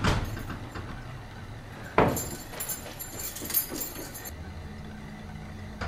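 Two sharp knocks or thuds, one at the start and a louder one about two seconds in, followed by a low steady hum near the end.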